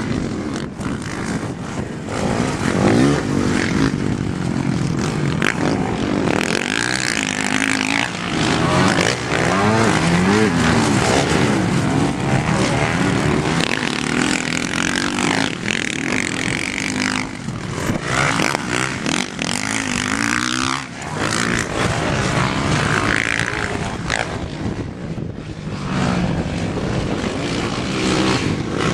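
Dirt bike engine running under load, its pitch rising and falling over and over as the throttle is opened and closed while riding.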